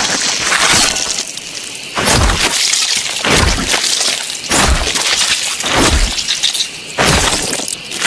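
A series of about six heavy blows, roughly one a second, each a sudden cracking hit with a low thud underneath: film gore sound effects of a killer's attack on a victim.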